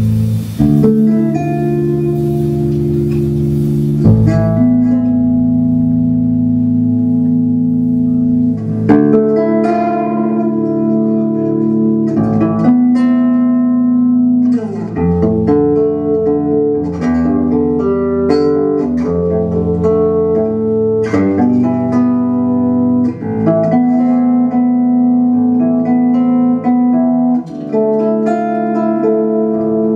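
Plucked electric string instrument playing free improvisation: ringing notes and chords, let to sustain and overlap, with a fresh pluck every second or few, and no drums.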